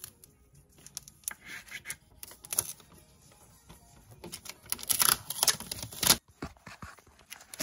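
Clear packing tape being pulled off the roll in short ripping pulls, with clicks and knocks of hands and the roll against a wooden desk. The pulls come thickest about five to six seconds in.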